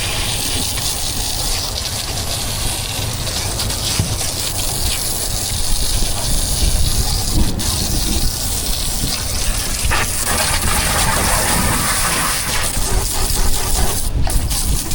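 Steady rush of water and wind noise, as from a boat running at speed across open water.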